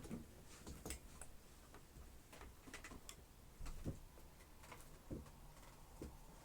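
Faint, irregular clicks and light knocks from the plastic body and parts of a Dyson upright vacuum cleaner being handled while it is switched off, with a slightly heavier knock a little before halfway through.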